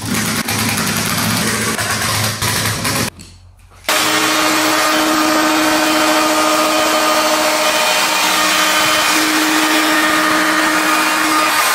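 Electric power tools running: a low-pitched motor for about three seconds, then, after a short drop, a steadier tool running on with a constant hum.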